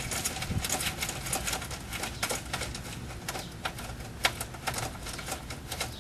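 A 10mm socket ratchet wrench clicking in quick, uneven strokes as it loosens one of the gold mounting screws that hold the DVD player unit.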